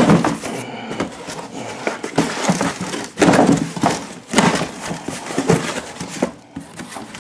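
A cardboard box being opened by hand, with irregular scrapes, knocks and rustles of cardboard.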